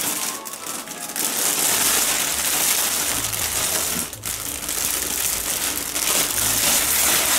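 Clear cellophane gift wrap crinkling and crackling continuously as it is pulled off and crumpled by hand.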